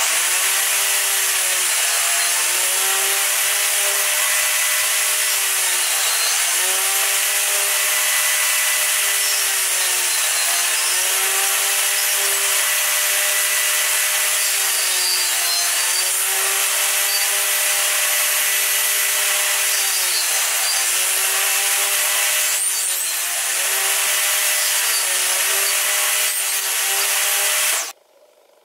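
Table saw running and cutting into the end of a board held upright in a tenoning jig. The motor's whine sags in pitch every four to five seconds as the blade takes each pass, over a steady hiss of cutting. The sound cuts off near the end.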